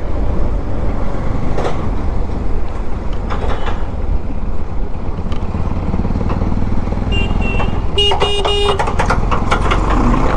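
Bajaj Pulsar NS200 single-cylinder motorcycle riding through traffic, with steady engine and road noise. About seven seconds in come two short high beeps, then a vehicle horn sounds once for under a second.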